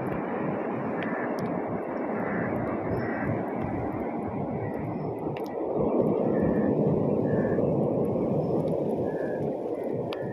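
Muffled, steady rushing of water as heard by a microphone held underwater, growing louder about six seconds in, with a few faint ticks.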